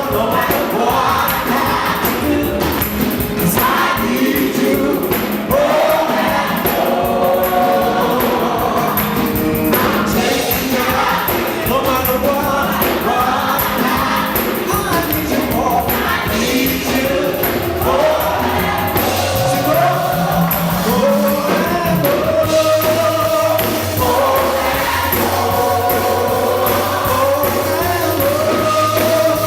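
Gospel music performed live: several voices singing together over a band with a sustained bass line.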